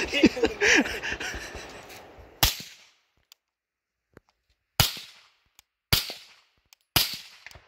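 Suppressed 300 Blackout AR-15 firing supersonic rounds through a Rugged Razor 762 suppressor: four sharp shots, the first about two and a half seconds in, then three more a little over a second apart.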